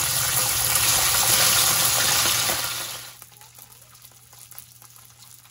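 Pieces of marinated chicken buchi deep-frying in hot oil in a wok, a loud, dense sizzle. About three seconds in it drops sharply to a much quieter sizzle with faint crackles.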